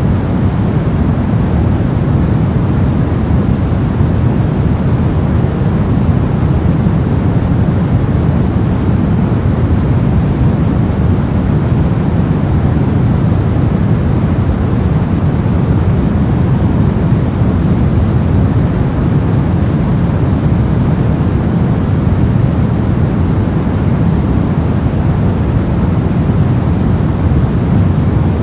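Brown noise: a steady, unbroken deep rushing hiss, strongest in the low rumble and thinning toward the highs, with no changes or events.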